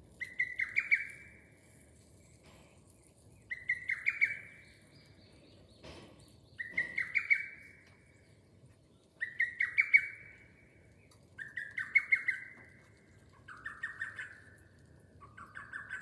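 Lesser cuckoo (hototogisu) singing its short phrase of five or six quick, sharp notes over and over, about seven times, every two to three seconds. The last few phrases come slightly lower in pitch and a little closer together.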